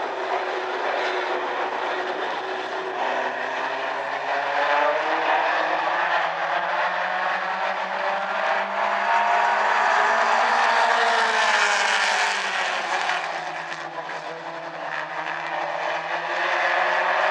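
Mini stock race cars running at speed around an oval track, several engines at once; the pitch of the pack rises as it comes by about two-thirds of the way through, then falls away and briefly drops in level.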